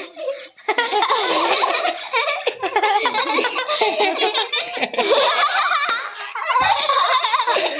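Several people laughing loudly together, starting after a brief pause about half a second in.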